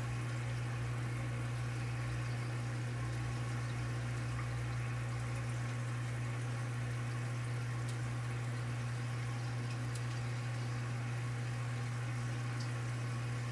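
Steady low hum over a constant background hiss, unchanging throughout.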